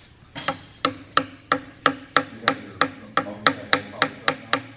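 Carving chisel cutting chips into a wooden longrifle forestock: a run of sharp, regular wooden clicks, about four a second.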